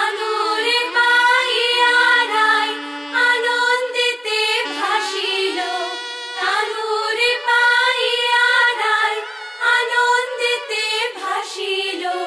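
Background music: a Bengali song with voices singing a melody.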